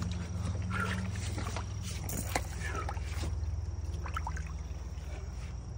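Water sloshing and a few small splashes as a musky is held in the river beside a kayak and released, over a steady low hum.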